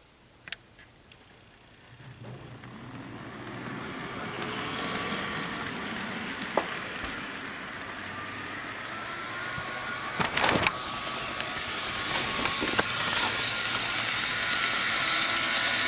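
Bachmann HO scale EMD F7 model locomotive pulling its freight cars around plastic track: its small electric motor and wheels start up about two seconds in and run with a rushing rattle and a faint whine, getting steadily louder as the train picks up speed. A small click comes near the start and a sharp knock about ten seconds in.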